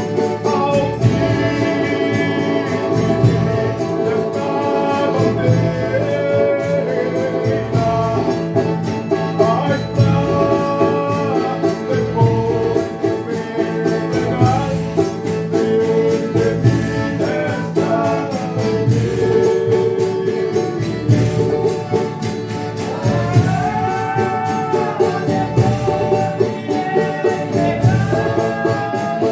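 Folia de reis group singing a song of thanks, voices over string instruments and a steady hand-percussion beat.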